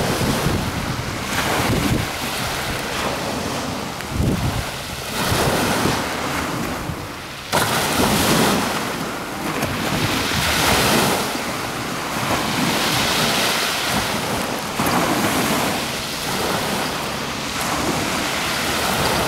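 Wind buffeting the microphone in gusts: a rushing noise that swells and falls every second or two, with a sudden louder gust about seven and a half seconds in.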